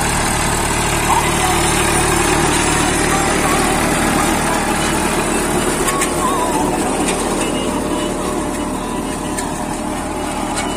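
Massey Ferguson 241 DI tractor's three-cylinder diesel engine running steadily under load, pulling a super seeder that is tilling and sowing the soil.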